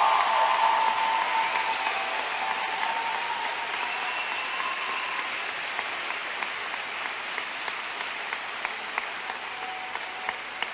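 A large crowd applauding, with a few cheers early on. The applause is loudest at the start and slowly dies down to scattered claps.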